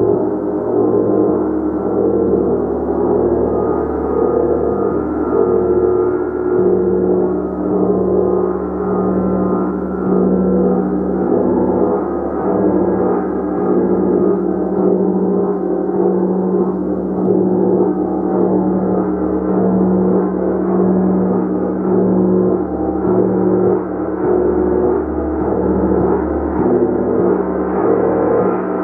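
Gong played continuously, a dense sustained wash of many overlapping ringing tones that gently swells and ebbs.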